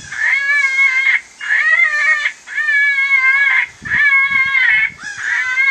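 FoxPro Spitfire electronic predator call playing a recorded animal call through its loudspeaker: about five wavering, high-pitched cries, each about a second long, with short gaps between them.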